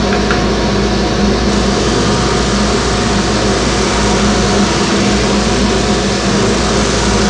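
Large homemade disc sander running steadily with a constant motor hum, while a small wooden workpiece is pressed against the spinning sanding disc and sanded.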